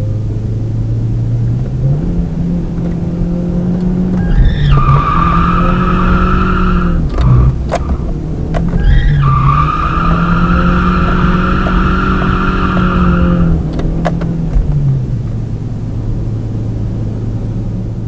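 Toyota Altezza's engine revving up as the car slides in a drift, with two long tyre squeals from its Nankang NS-2 tyres, the second lasting about four seconds. A few sharp knocks fall between and after the squeals, and the engine drops back to a lower steady note near the end.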